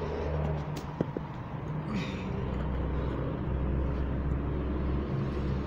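Steady low rumble of a motor vehicle's engine, with two light taps about a second in.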